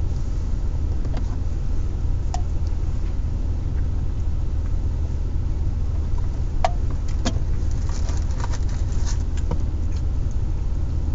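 Car engine idling steadily, heard from inside the cabin as a low hum, with a few short clicks over it.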